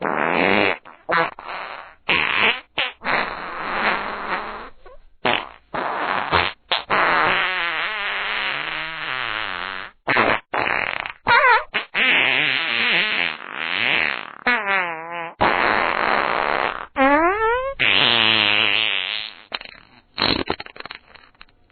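A string of fart sound effects, one after another: short blasts mixed with longer, drawn-out ones whose buzzing pitch wavers up and down.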